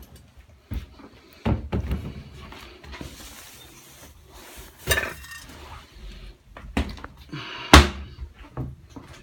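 Irregular knocks, clicks and clatter of hard objects being handled, with the loudest knock near the end.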